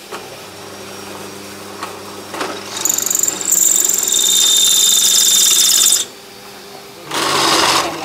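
Bench drill press drilling steel plate: the motor hums steadily at first, then about three seconds in a loud, high-pitched screech of the twist bit cutting the steel sets in and stops abruptly about six seconds in. A short burst of harsh noise follows near the end.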